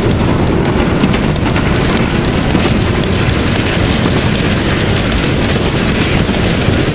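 PKP Ol49 2-6-2 steam locomotive running at speed, heard from beside the cab with heavy wind noise on the microphone: a loud, dense, steady rush of engine and wind.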